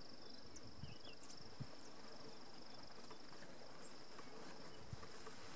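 An insect trilling steadily at a high pitch, with a few faint ticks over it.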